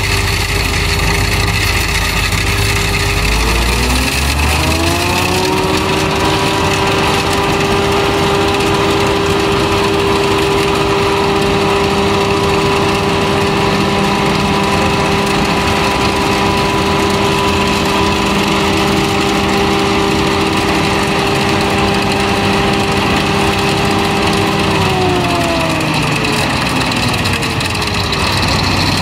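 Claas forage harvester running with a Kemper 345 six-row maize header fitted. A whining machine tone climbs a few seconds in as the drive runs up to speed, holds steady, then winds back down near the end.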